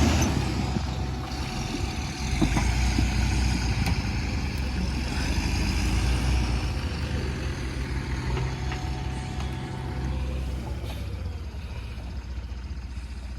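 Diesel engine of a JCB 3DX backhoe loader running steadily, with a few faint knocks, getting quieter over the last few seconds.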